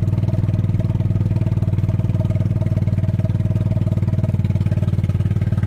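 Small engine of a farm vehicle running at a steady speed, with an even, rapid firing pulse and no revving.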